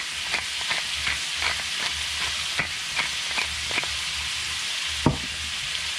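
Ground beef sizzling in a cast-iron skillet while a wooden pepper mill is twisted over it, a run of light clicks roughly two or three a second. A single sharper knock comes about five seconds in.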